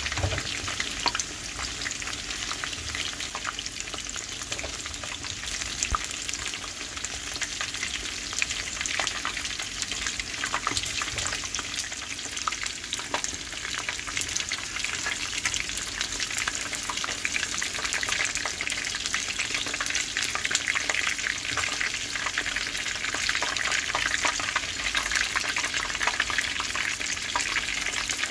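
Kingfish steaks deep-frying in hot oil in a pan, their second side browning: a steady sizzle full of small pops and crackles, growing a little louder in the second half.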